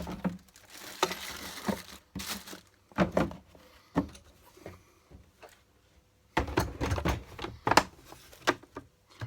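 Tools and trays being set into an L-BOXX plastic tool case with an MDF inlay: scattered knocks and clunks with a short rustle about a second in, and a busier run of knocks about two-thirds through.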